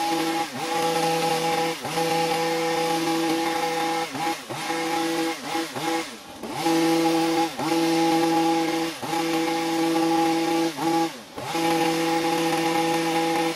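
A power tool's motor running with a steady whine, its pitch sagging briefly and recovering about every second or so as it is loaded or the trigger eased.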